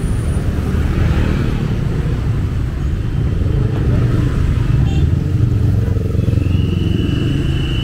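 Street traffic dominated by motorcycle engines, a steady low rumble. Near the end a steady high-pitched tone sounds for a little over a second.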